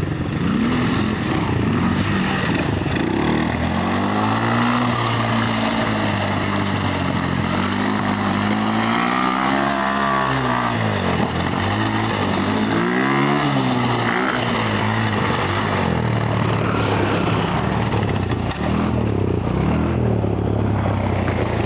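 ATV quad bike engine running, its pitch rising and falling several times as the throttle is opened and closed, and steadier near the start and end.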